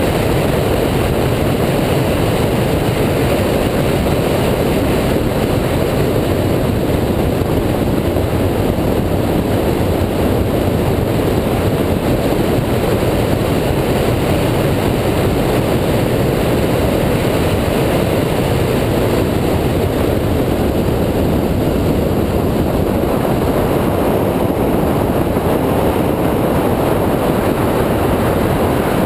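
Steady, loud rush of wind and road noise over a bonnet-mounted camera on a 2004 Mini Cooper S driving at track speed.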